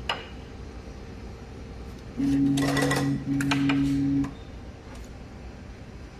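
HH-345F tape spot wrapping machine running a wrapping cycle, wrapping PVC tape around a wire bundle: a click near the start, then about two seconds of steady motor hum with a mechanical rattle, with a very brief break halfway through.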